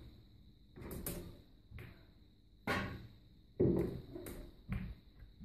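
Snooker balls knocking: the cue tip striking the cue ball and balls clicking against each other and the cushions, a run of sharp knocks about a second apart, each with a brief ring, the loudest about two thirds of the way in.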